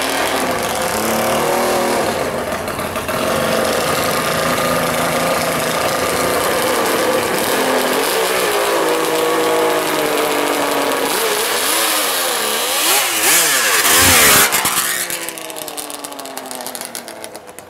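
Kawasaki H2-based three-cylinder two-stroke engine in a custom drag motorcycle, running as the bike is ridden at low speed. Near the end it revs up and down a few times, is loudest as it passes, then fades as it rides away.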